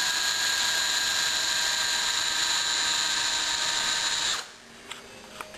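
Electric drill running steadily as it twists a doubled length of 316L stainless steel wire into a braid, then stopping abruptly about four seconds in; a few light clicks follow.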